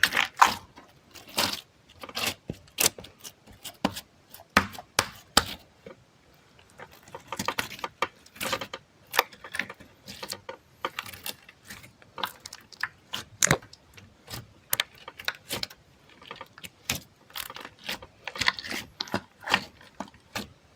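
Close-miked ASMR handling sounds: irregular crisp clicks and crackles, several a second, with a short lull about six seconds in.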